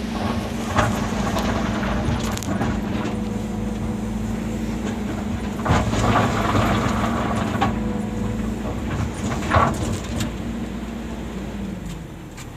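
Excavator's diesel engine running at a steady pitch, with several clanks and knocks. The engine note falls away near the end.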